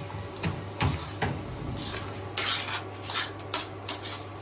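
A spoon knocking and scraping against a cooking pot as food is stirred: a string of short clinks and knocks with a longer scrape about halfway through.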